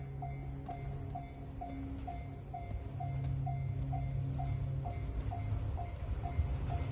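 Japanese railway level-crossing warning bell ringing steadily at about two strikes a second, with an approaching train's low rumble growing louder from about three seconds in.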